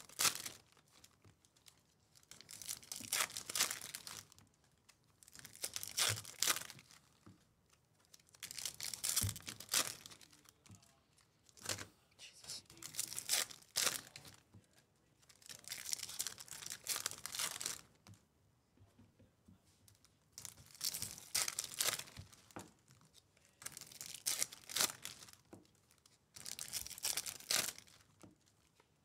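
Foil wrappers of Topps baseball card packs being torn open and crinkled by hand, in repeated bursts of about a second or two, every two to three seconds.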